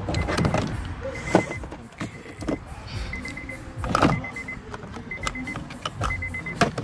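Honda Accord plastic door trim panel being handled and pressed back onto the door, with irregular knocks and clip snaps, the loudest about a second and a half in and about four seconds in. A short electronic beep repeats about once a second.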